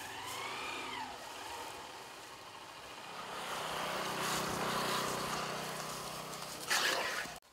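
A motorcycle engine passing along the road, growing louder to its closest point about halfway through and then fading. A short, loud noise comes just before the end.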